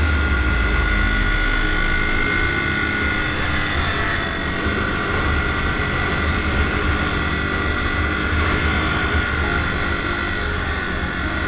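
Dirt bike engine running at a steady speed while riding a dirt trail, holding an even note, with wind rumbling on the onboard camera's microphone.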